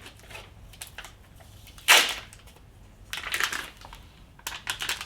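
A sealed plastic package of sliced ham being peeled open by hand: a sharp tear of the film about two seconds in, then more rustling and crackling of the plastic near the end.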